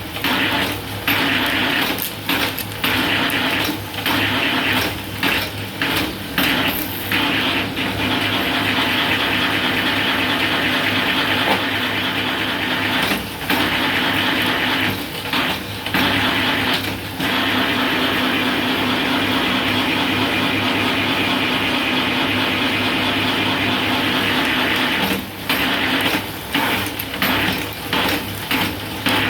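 Bamboo satay-skewer rounding machine running: its motor hums steadily while bamboo strips are shaved through the cutter head, with many brief breaks between strips near the start and the end.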